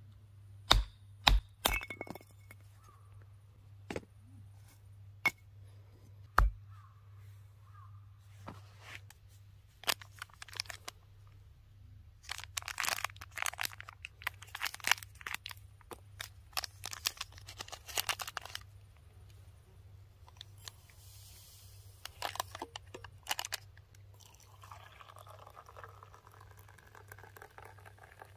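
Firewood being split by hand: a few sharp knocks of a blade or hatchet on wood about a second in and again near six seconds, then a longer stretch of cracking and crunching wood in the middle.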